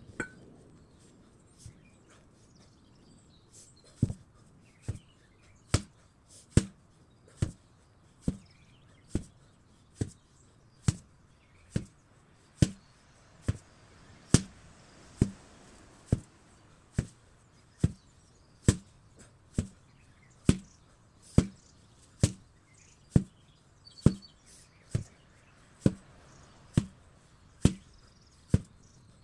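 Heavy 8 kg sledgehammer blows landing in a steady rhythm, a little faster than one a second, after two scattered blows in the first couple of seconds.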